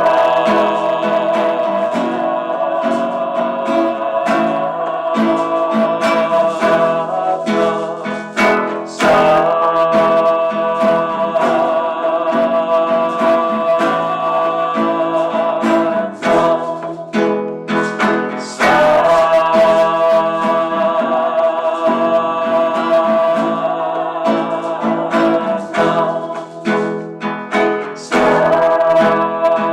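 A song on acoustic guitar with a singing voice, the guitar plucked and strummed under long held notes.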